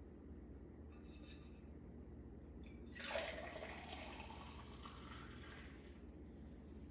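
Liquid poured into a cup, starting suddenly about three seconds in and trailing off over about three seconds, over a low steady hum.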